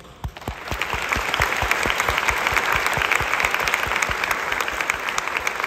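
Audience applauding, starting a moment in and rising quickly to a steady level, with individual close-by claps standing out.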